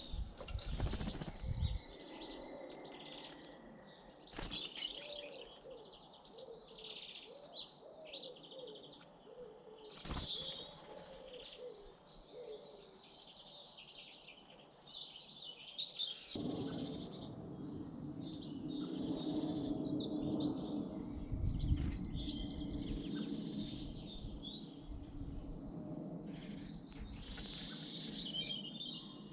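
Small garden birds chirping and singing, with short sudden flutters of wings. About halfway through, a steady low rumble of background noise comes in under the calls.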